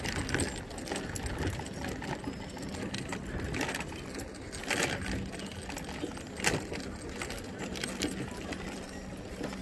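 A scooter rolling along a wooden pier deck, with irregular rattles and clicks from its front basket and frame as it crosses the planks.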